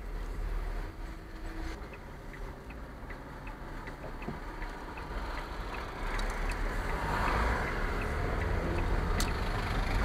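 Car cabin noise while driving, with a turn indicator ticking evenly about three times a second through the turn, then engine and tyre noise growing louder as the car speeds up along the road.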